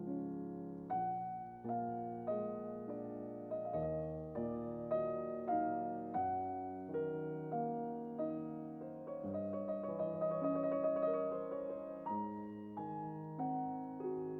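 Background piano music: slow chords struck in a steady pulse, with a run of quick repeated notes in the middle.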